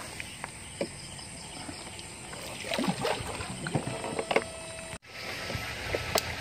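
Water sloshing and scattered knocks and clicks as bamboo electrofishing poles are worked through canal water, over a faint steady high whine. The sound drops out sharply about five seconds in, then goes on as a steadier hiss.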